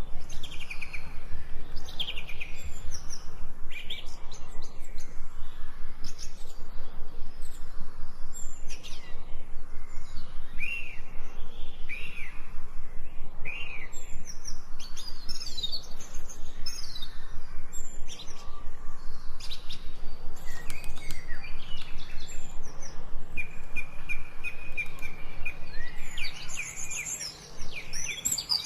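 Several forest birds chirping and singing: many short whistled notes, some rising and some falling, with a busy run of quick notes near the end.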